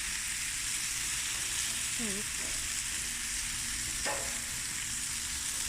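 Food sizzling on a barbecue grill, a steady, noisy hiss, with a brief chirp about two seconds in and a click near four seconds.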